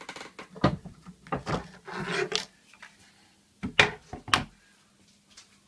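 A file rasping against the edge of a pine board in a few short, separate strokes, followed a little later by a few loud knocks of wood.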